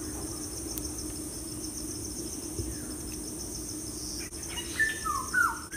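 Steady insect chirring, crickets by its sound, with an even rapid pulse over a constant low hum. Near the end come a few short whistle-like tones that slide downward.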